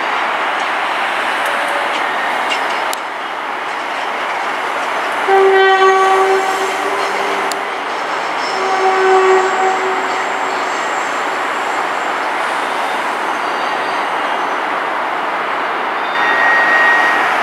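A train horn sounds twice on one steady note, a long blast about five seconds in and a shorter one about a second after it ends. Under it runs the steady noise of electric trains moving through the yard and the motorway traffic.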